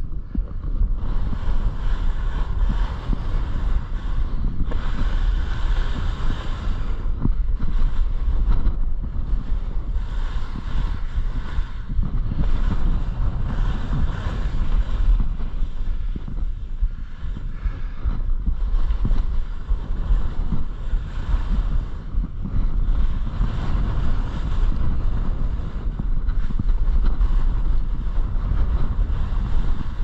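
Wind rushing over the microphone on a fast ski descent, a heavy low buffeting, with the hiss and scrape of skis on packed snow swelling and fading every few seconds.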